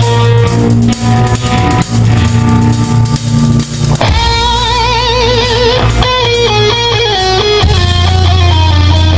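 A band playing loud: electric guitars and a drum kit pound out heavy chords, then about four seconds in a guitar takes a lead line with wide vibrato, steps down through a run of notes and settles on a held low chord.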